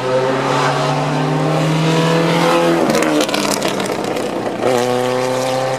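Open-cockpit sports racing car accelerating hard past at a speed event, its engine note climbing, dropping sharply about three seconds in as it changes gear, then climbing again.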